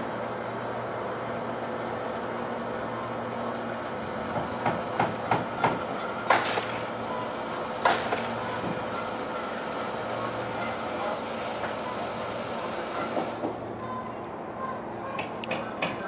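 Construction-site machinery running with a steady hum, and a run of sharp knocks between about four and eight seconds in, with a few more near the end.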